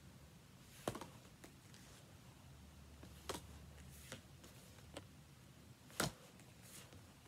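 Pokémon trading cards being handled and flipped one behind another, making a few short, faint clicks and snaps, the loudest about a second in and near six seconds.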